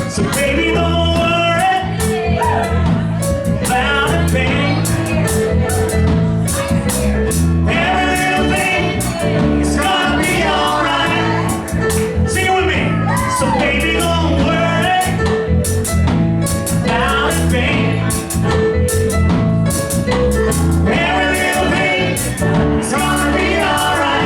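Live band of electric keyboard, bass guitar and drum kit playing a reggae groove, with a voice singing loose, wordless phrases over it.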